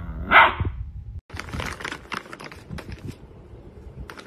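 A Rottweiler puppy gives one bark. Then plastic bags of dog treats crinkle and rattle in quick, irregular clicks and rustles as a small dog paws at them.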